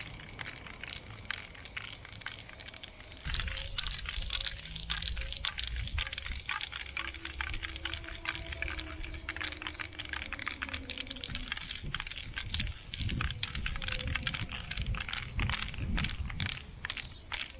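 Aerosol spray can of Flame chrome-silver paint spraying onto a wall in strokes: a hiss mixed with many quick clicks and rattles, louder from about three seconds in.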